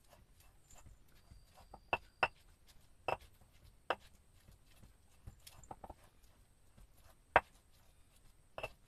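A handful of sharp knocks and clicks at irregular intervals over a quiet background, the loudest about seven seconds in.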